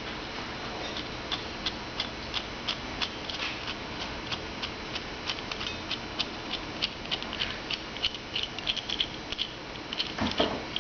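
Light, sharp metallic ticks, roughly two or three a second and a little uneven, as the adjusting screw of a pair of locking pliers is turned out by hand; a short low knock near the end.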